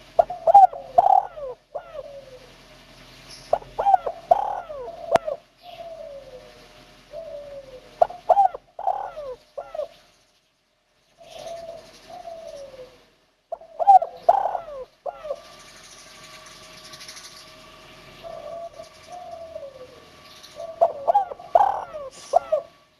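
Spotted dove (tekukur) cooing in repeated phrases, about five song phrases separated by short pauses, in the 'kuk 1' song type.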